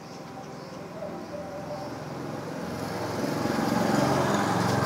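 A motor vehicle's engine approaching along the road, growing steadily louder through the second half.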